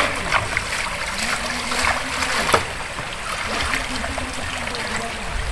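River water flowing and babbling steadily, with scattered small splashes.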